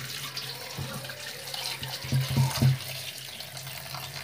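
Cold tap water running onto boiled noodles in a perforated steel colander in the sink, as a hand turns the noodles over to rinse them. A few louder thumps come about halfway through.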